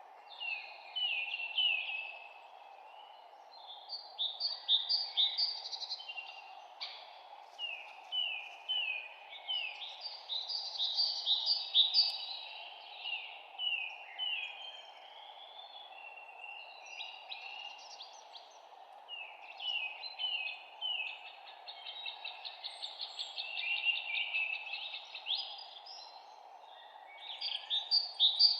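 Songbirds singing in phrases of quick, repeated falling notes that come and go, over a steady low background hiss.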